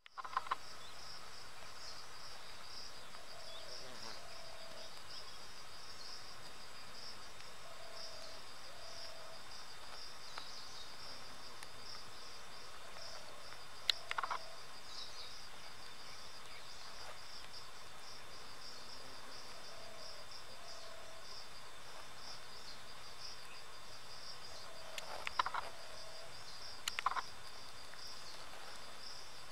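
Steady high-pitched chorus of insects, likely crickets, trilling in a fast pulsing rhythm. Faint short two-note calls recur every few seconds underneath, and a few brief sharp chirps come about halfway through and again near the end.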